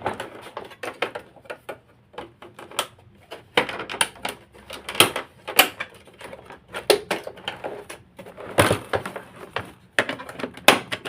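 Screwdriver prying at the press-fitted plastic housing of an Electrolux ProSilent vacuum cleaner: irregular plastic clicks, knocks and scrapes, with the loudest cracks a little over eight seconds in.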